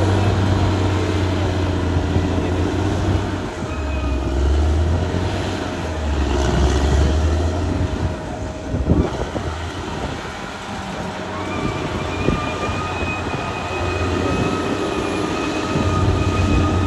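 Caterpillar D6R XL bulldozer's diesel engine running under changing load, its low drone dropping and rising in pitch several times. Metallic knocks about halfway through. A steady high whine through the second half.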